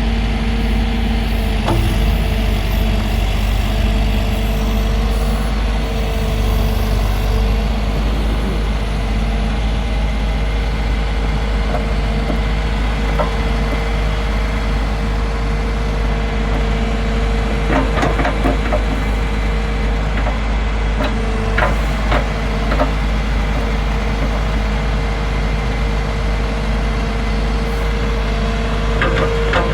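John Deere 410J backhoe loader's diesel engine running steadily, with a steady whine over the engine note. A few short sharp knocks come through around the middle and again near the end.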